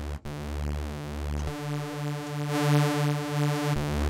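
Detuned sawtooth synth layer in Spectrasonics Omnisphere playing long held notes, with a steady pulsing beat from the detuning. The pitch changes about a second and a half in and again near the end.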